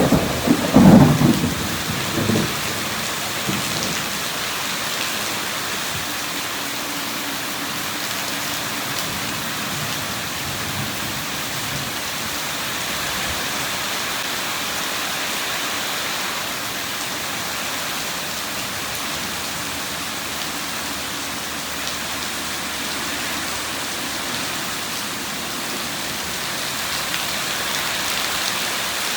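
A thunderstorm: a loud clap of thunder at the very start that rumbles off within a few seconds, then steady, heavy rainfall.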